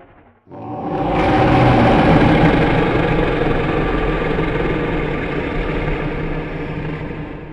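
Sound-designed monster roar meant as the mythical sea creature Makara: one long, rumbling roar that begins about half a second in, swells quickly, holds for several seconds and slowly fades near the end.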